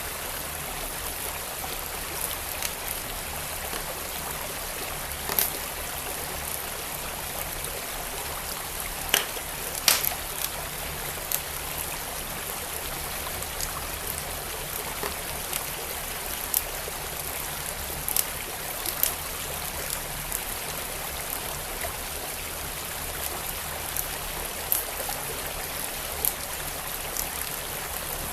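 Wood fire in a fireplace crackling with sharp, irregular pops, the loudest two about a third of the way through, over the steady rush of a flowing stream.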